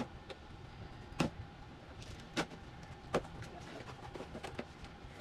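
A cardboard box being opened: the tape is cut and the flaps pulled apart, with scrapes, rustles and three sharp knocks spread over the first few seconds.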